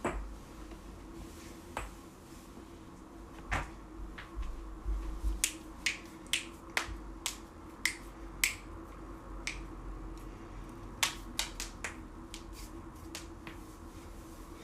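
Joints cracking: a long run of sharp, separate pops, a few spaced out at first and then coming every half second or so from about four seconds in.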